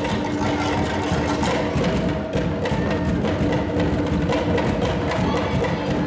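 Fast Polynesian percussion music: a rapid, steady clacking of wood over drums.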